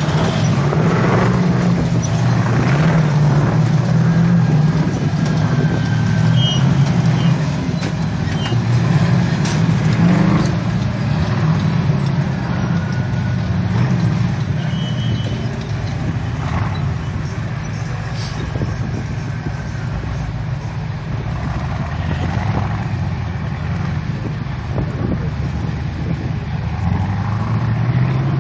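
Engines of off-road race buggies running under load as they crawl and climb over rocks, a low engine note that rises and falls with the throttle.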